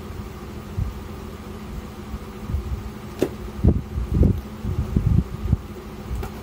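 Kitchen knife chopping bird's eye chillies on a plastic cutting board: irregular dull knocks, several a second, starting about two and a half seconds in, with one sharper click, over a steady background hum.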